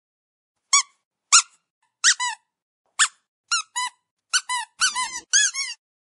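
Rubber squeaky dog toy squeezed over and over. About a dozen short, high squeaks start about a second in, each rising and falling in pitch, some in quick pairs. They come faster toward the end.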